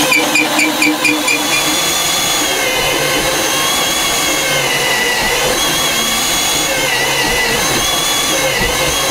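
A Milwaukee Super Hawg cordless right-angle drill boring upward through a wooden wall top plate with a bit on an extension. The motor whines steadily under load, and its pitch dips and recovers a few times as the bit bites into the wood.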